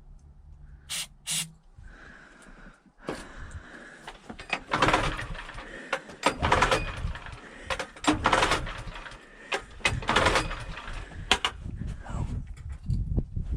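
Small engine being pull-started: about four hard yanks of the recoil starter cord, each a short rasping whir as the engine turns over, without catching. The engine has just had its carburetor cleaned and primed with starter fluid and still won't run.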